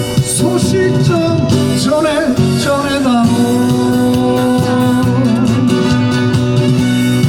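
Live busking performance of a song, with guitar-backed accompaniment under a melody line that bends and wavers, then settles on one long held note from about three seconds in.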